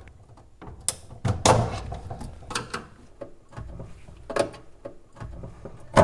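Screwdriver prying the plastic locking tabs of a refrigerator's freezer front panel: several sharp plastic clicks and snaps at uneven intervals, with low handling rattles between them.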